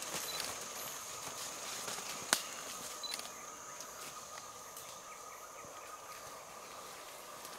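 Equatorial forest ambience: a steady high-pitched drone of insects, with a few faint clicks and one sharp snap a little over two seconds in.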